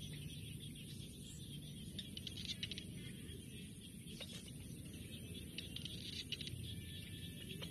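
Faint open-field ambience: a steady low background hiss with a few short bursts of rapid, high chirping trills.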